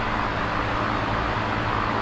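Electric fan running steadily: an even rush of air with a low motor hum beneath it.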